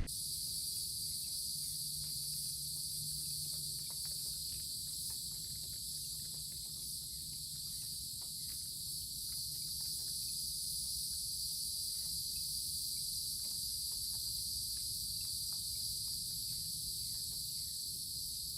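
A steady, high-pitched insect chorus, crickets and similar insects trilling without a break.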